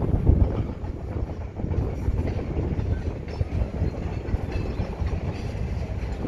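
Double-stack intermodal freight train's container well cars rolling past: a continuous low rumble of steel wheels on rail, with irregular clacks over the rail joints.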